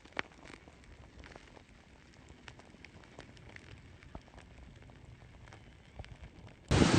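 Faint, scattered crackles and ticks from a slow-moving lava flow, its cooling crust cracking as it creeps. Near the end it cuts abruptly to loud wind noise.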